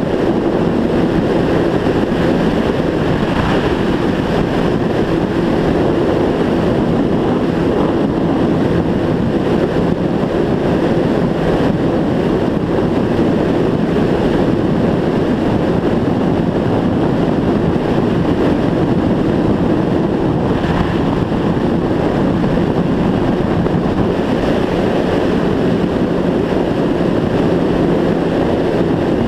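Motorcycle engine cruising at a steady speed, its drone holding one pitch, with wind rushing over the microphone.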